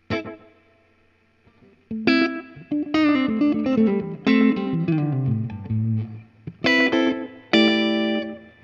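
Electric guitar played through an EarthQuaker Devices Disaster Transport SR modulated delay and reverb pedal. A chord is struck once and left to ring. From about two seconds in comes a phrase of picked notes and chords that walks down in pitch, and it ends with two strummed chords.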